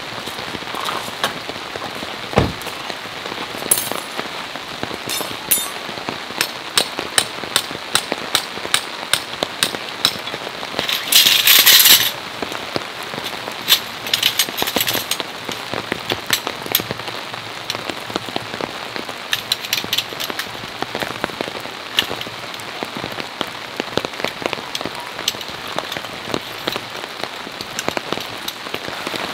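Steady rain, with many separate drops tapping sharply on a nearby surface. About eleven seconds in there is a louder rush lasting about a second.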